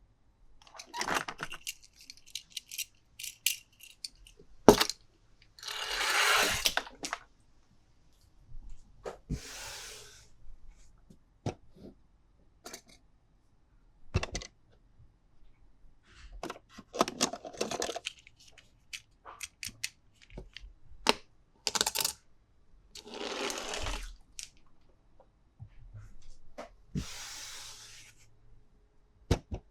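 Toys and their packaging being handled: scattered sharp clicks and knocks of hard plastic or die-cast pieces, with about six short rustling noises each lasting around a second.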